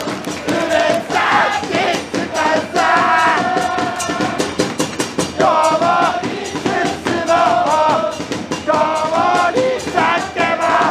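Football supporters' chant: a crowd singing a tune in unison in held notes, over steady drum beats.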